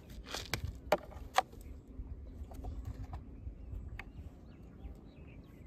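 Sharp clicks and taps of plastic being handled while mixing fishing bait: a small plastic packet and a plastic bottle. About five clicks, most in the first second and a half and one more about four seconds in.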